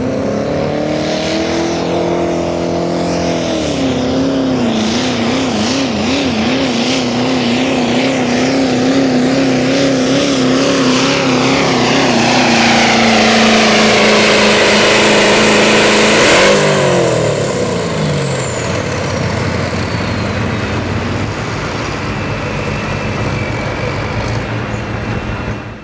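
A pulling truck's engine runs hard under load while dragging the sled. The pitch wavers up and down, and the roar builds steadily. About 16 seconds in the engine lets off and the revs fall away sharply, and a high whine slides down over the next few seconds.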